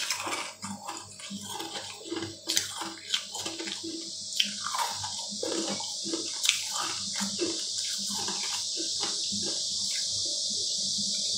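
A steady rushing hiss like running water that builds up over the first few seconds and then holds, with soft clicks and squishes from a silicone sphere mold being handled.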